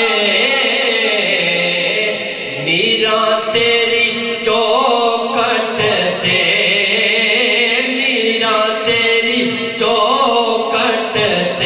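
A man singing a naat (a devotional Islamic poem) into a microphone, in long held notes that bend and waver, one phrase every couple of seconds.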